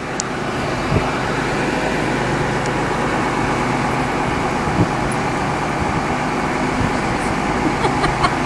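Diesel train's engine idling while the train stands at the platform: a steady low hum, with a few light clicks and knocks, most of them near the end.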